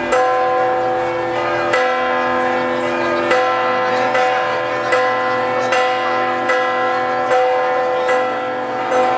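Church bells pealing, struck again and again a little under once a second, each stroke ringing on into the next.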